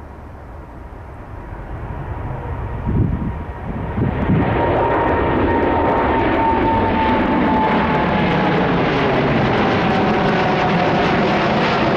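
Boeing 787 Dreamliner's GEnx turbofans at climb power as the jet climbs out after takeoff and passes overhead. A jet roar builds and turns loud and steady about four seconds in, with a fan whine slowly falling in pitch. Two low thumps, wind on the microphone, come just before the roar peaks.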